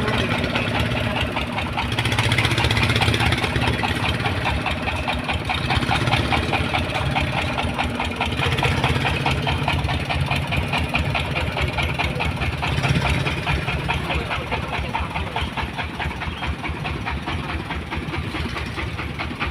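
An engine running steadily at a low, even speed, with a rapid regular chugging.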